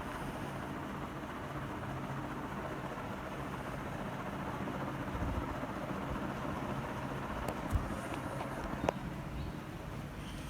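Starlight 48-inch ceiling fan (model T348) running steadily: a low motor hum under a steady rush of moving air, with a few short clicks a little past the middle.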